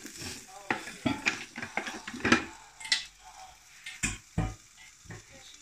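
A silicone spatula clicking and scraping against the batter bowl and waffle plate. About four seconds in, the lid of an electric waffle maker is shut with two dull thumps, followed by a lighter knock.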